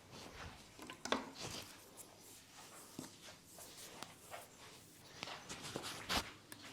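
Hands rubbing and working over a head of hair and skin in a head massage: soft, irregular scratchy rubbing, with a sharper tap or click about a second in and another near the end.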